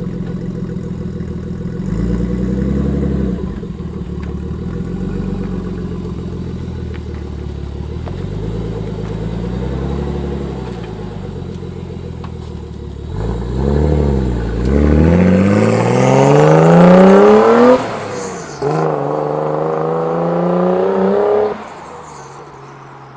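Nissan RB25 turbocharged straight-six, fitted with a Tomei Arms MX8265 turbo and a new exhaust, running at low revs with a couple of light blips. About halfway through it pulls away hard, revs climbing steeply, drops at a gear change, and climbs again before the sound falls away suddenly near the end: a pretty loud exhaust note.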